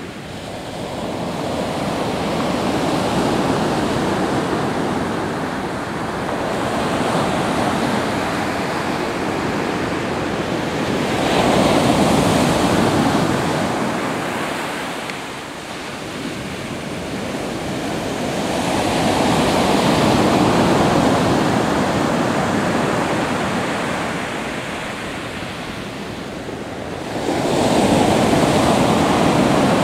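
Pacific Ocean surf breaking on the shore: a steady wash of waves that swells and ebbs, with a new wave crashing in about every eight seconds.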